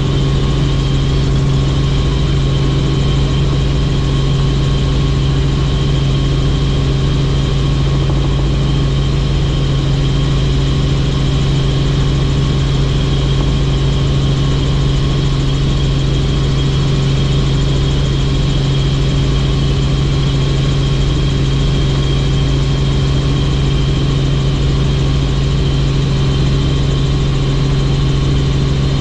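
Helicopter in flight, its engine and rotors making a steady, unchanging drone: a strong low hum with a fainter high whine above it.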